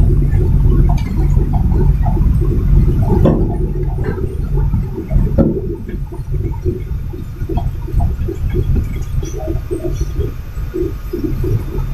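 Heavy, choppy low rumble of a container truck's diesel engine and cab while driving, with uneven short sputtering sounds on top; it eases somewhat around the middle before building again near the end.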